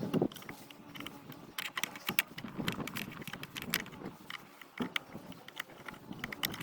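Metal tool clicks and knocks as an 8mm Allen key works at the bolts of a Kawasaki J125 rear brake caliper to slacken them, sharp irregular ticks coming in small clusters.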